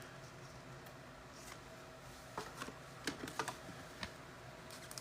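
Faint, scattered light clicks and taps over a low steady room hum, bunched from about halfway through to about four seconds in.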